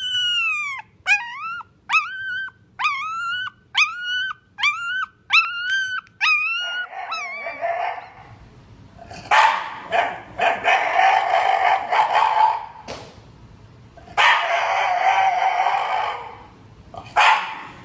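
A newborn Shiba Inu puppy squeaking: a quick string of about a dozen short, high squeals, each sliding in pitch. Then an adult Shiba Inu makes long, raspy whining moans in two stretches of a few seconds each.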